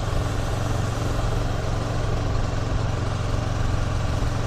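CFMOTO 650NK's parallel-twin engine running steadily as the motorcycle rides along at an even pace, a constant low hum.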